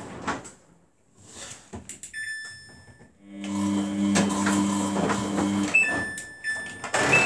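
Samsung WF80F5E0W4W front-loading washer: the steady hum of the drum motor stops about half a second in, and around two seconds in the control panel beeps. The motor hum comes back, stops again near six seconds with another beep as the program dial is turned, and a short beep follows near the end.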